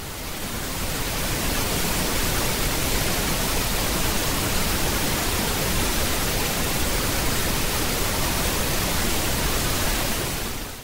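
Pink noise: a steady, even hiss with no tones or rhythm, fading in over about the first second and fading out just before the end.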